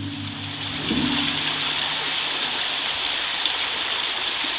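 River water rushing steadily. A low, steady engine hum sounds underneath for the first two seconds, then fades out.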